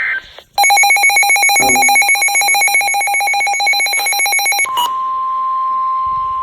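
Weather alert radio: the last of an emergency data burst, then a loud, rapidly trilling alarm for about four seconds. Near the end it gives way to the steady 1050 Hz NOAA Weather Radio warning alarm tone, which signals that a warning is about to be read.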